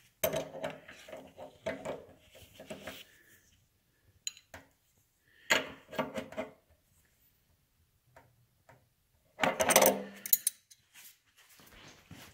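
Hand tools clinking and scraping on metal as a wrench tightens the fuel-line fittings at the motorcycle's petcocks. The sound comes in irregular bursts, the loudest about ten seconds in.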